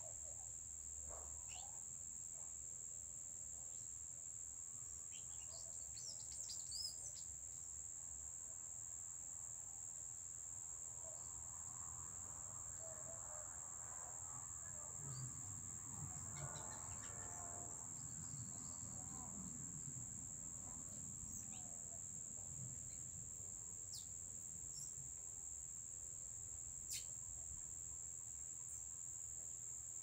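Steady high-pitched drone of insects, with a few short bird chirps scattered through it.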